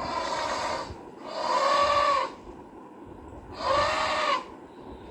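Elephant trumpeting: three calls, each about a second long, with a steady pitch that arches slightly at the top.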